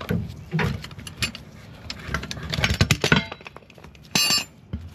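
Steel scissor jack rattling and clanking as it is pulled free and set down on the asphalt, with a brief metallic ringing clink a little after four seconds in.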